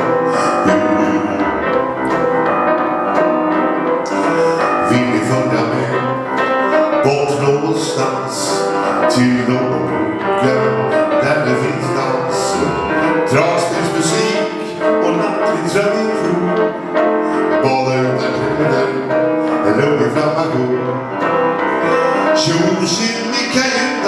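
Live jazz performance of a Swedish song: a male singer with piano accompaniment.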